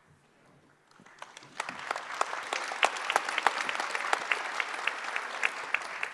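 Large audience applauding, beginning about a second in and building quickly to steady, dense clapping.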